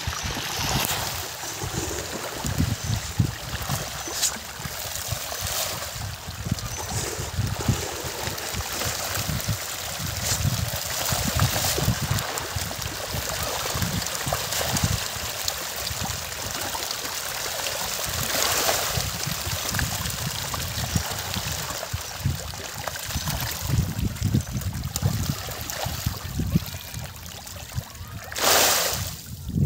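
A dense shoal of rohu splashing and thrashing at the pond surface in a feeding frenzy, a continuous uneven churning and slapping of water. A brief louder rush of water comes near the end.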